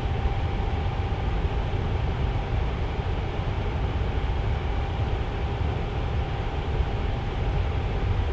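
Tower fan running steadily: an even rushing air noise, heaviest in the low end, with a faint steady tone.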